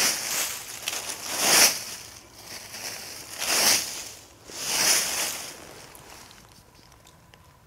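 Dry leaf litter crunching and rustling in four separate bursts a second or two apart, then dying away after about five seconds.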